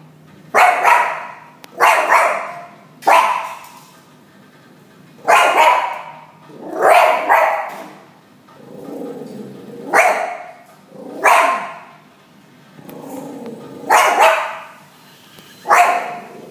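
Small curly-coated pet dog barking at hens: about nine sharp barks, singly and in pairs, with pauses of one to two seconds.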